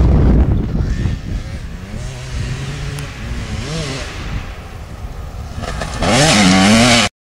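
Motocross dirt bike engine revving as the bike rides by and comes closer, its pitch rising and falling with the throttle. The bike is loudest near the end, and the sound cuts off suddenly.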